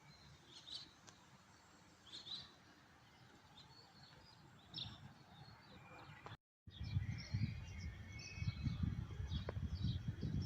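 Small birds chirping and twittering in short, repeated calls. About six and a half seconds in the sound drops out briefly, and after it the chirps come quicker over a louder low rumble.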